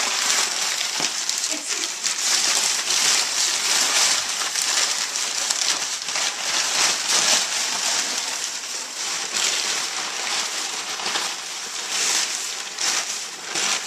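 Crumpled brown kraft packing paper crinkling and rustling continuously as a pig roots through it and shoves it around her nest of paper and blankets.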